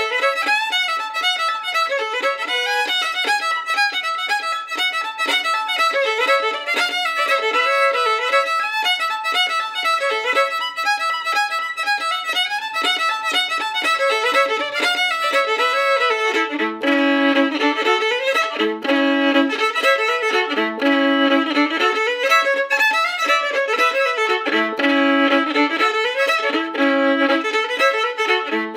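Fiddle music: a folk fiddle tune with quick runs of notes. About halfway through, a lower repeating figure comes in under the melody.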